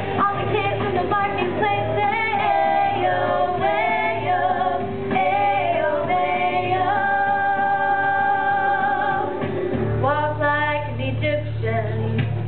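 A song with a woman singing over a steady bass beat, played for a stage dance; she holds one long note about halfway through.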